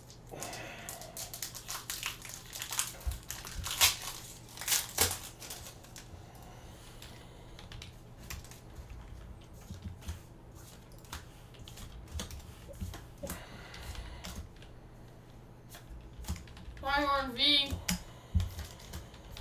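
A foil Pokémon booster pack is torn open and its cards are handled and flicked through, making a run of sharp clicks, snaps and crinkles that are busiest in the first few seconds. Near the end there is a brief wavering vocal sound.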